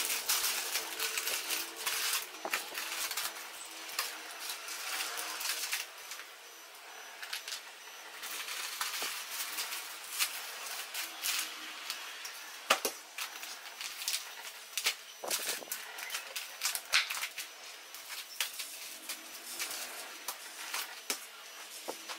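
Plastic grocery packaging crinkling and rustling as packets are pulled out of a cloth tote bag and set down on a table, with scattered sharp crackles and clicks throughout.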